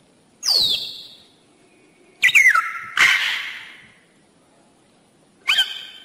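Macaw giving four loud, short squawks. Most slide sharply down in pitch, and the third, following straight on from the second, is rougher and noisier.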